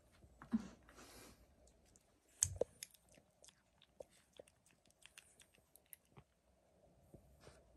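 Cat licking a liquid treat from a hand-held squeeze tube: quick, faint wet licking clicks, with one sharper click about two and a half seconds in.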